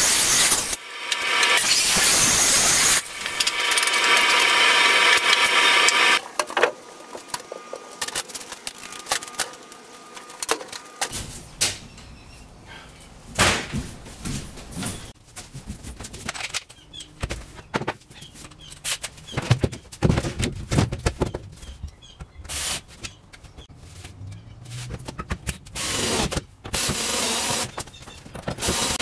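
A power saw cutting plywood, loud with a high whine, stopping about six seconds in. After that, scattered knocks and clatter of plywood panels being handled and set against a wall.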